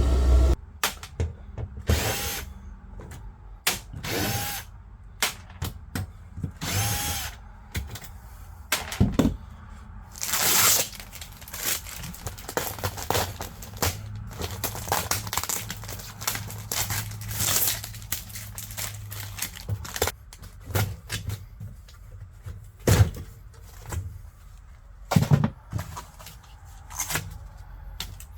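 A run of short power-drill bursts mixed with many knocks and clanks of tools and sheet-metal panels. A low hum stops about half a second in.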